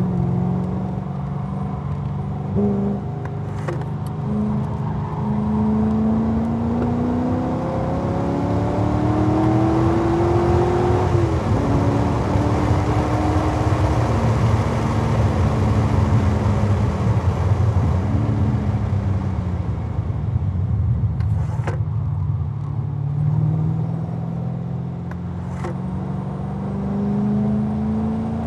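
2011 Corvette Z06's 7.0-litre LS7 V8 at full throttle on a road course, heard over heavy wind rush. The engine note climbs steadily and drops sharply about eleven seconds in at an upshift. It sags around eighteen seconds as the driver eases off, then builds again toward the end.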